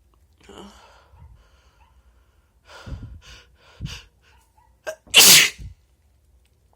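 A person sneezing: a couple of shorter sharp breaths build up, then one loud sneeze about five seconds in.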